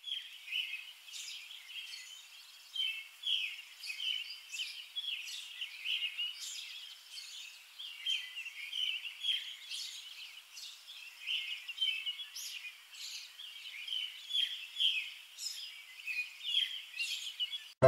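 Small birds chirping, a dense stream of short, high calls overlapping one another, with no low sound beneath.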